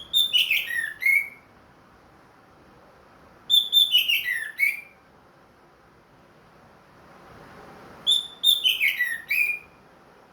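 Orange-headed thrush singing three short phrases about four seconds apart. Each phrase is a quick run of whistled notes that fall from high to lower pitch and end on a brief separate note.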